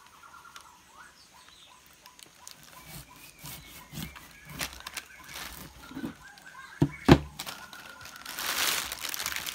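A large jackfruit being handled and cut on a plastic sheet: scattered knocks, one heavy thump about seven seconds in, then plastic crinkling near the end.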